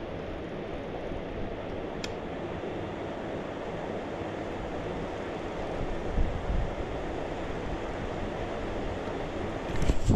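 Steady rush of brook water flowing under a bridge. Wind buffets the microphone about six seconds in, and there is a handling knock near the end as the camera is moved.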